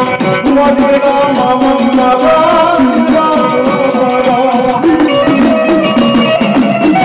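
Loud live Gujarati devotional dakla music: a voice singing over a fast, steady hand-drum beat, with held instrumental tones underneath.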